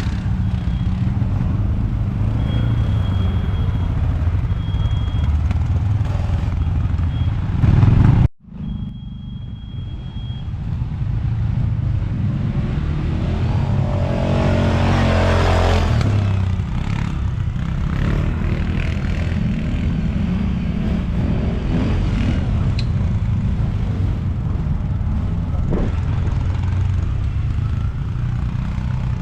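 ATV (quad bike) engines running on a dirt track, a loud steady low rumble with some clatter. The sound cuts out abruptly for a moment about eight seconds in, then resumes.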